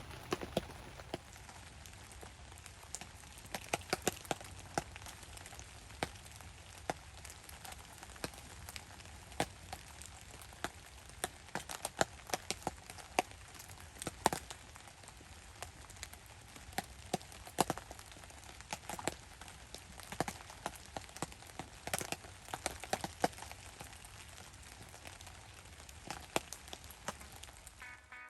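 Rain falling with a campfire crackling: a faint steady hiss dotted with many irregular sharp pops and drips.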